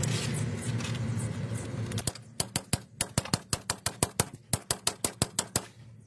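A steady low rumble that cuts off about two seconds in, followed by a rapid run of sharp clicks, about six a second, which stops shortly before the end.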